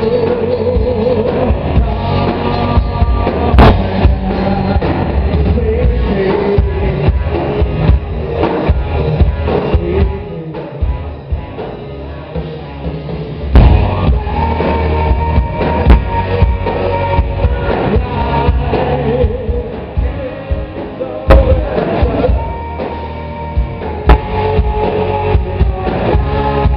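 Live rock band playing: electric guitars, bass guitar and drum kit, with a male voice singing. The band drops to a quieter passage about ten seconds in, then comes back in with a loud drum hit.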